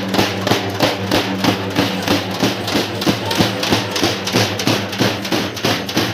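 Loud procession music driven by drums, with a fast, steady beat over a sustained low bass.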